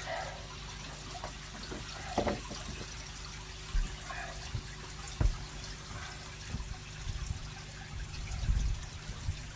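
Water sloshing and dripping as a small hand net is moved among koi fry in a shallow plastic tub, with a few light knocks and a steady low hum underneath.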